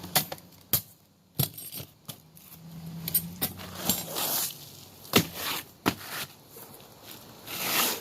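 Pneumatic roofing nailer being worked on shingles: a string of sharp metallic clicks and knocks, the loudest about five seconds in, with two short hisses near the middle and near the end.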